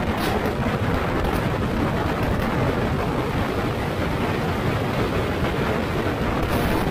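Steady, even rumble of a vehicle on the move, deepest in the low range, with a few faint ticks over it.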